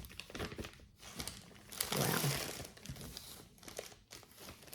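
Packaging being handled and dug through: irregular crinkling and rustling, most dense about two seconds in.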